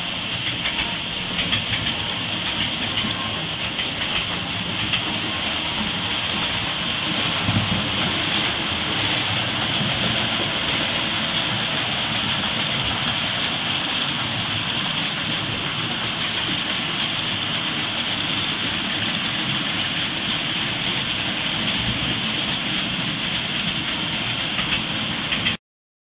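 A train running on rails: a steady rushing rattle that cuts off suddenly near the end.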